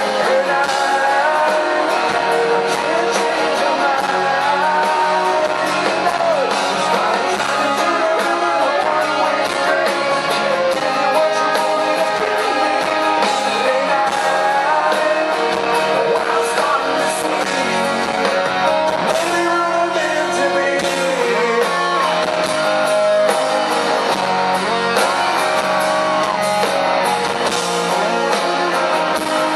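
Live rock band playing: a male lead singer singing over electric guitars and a drum kit, picked up from among the audience.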